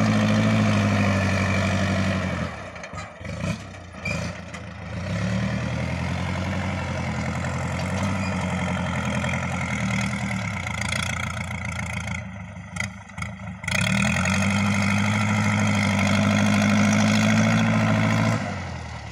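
Kubota L4508DI tractor's diesel engine running under load while its front blade pushes soil. The engine note is loud at the start and again past the middle, and it drops away twice, about two and a half seconds in and again around twelve seconds, before picking back up.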